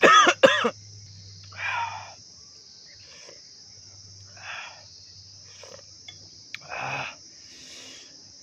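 Steady high-pitched chorus of jungle crickets or other insects. Two loud pitched sounds come at the very start, and shorter rustling or slurping-like noises follow every couple of seconds.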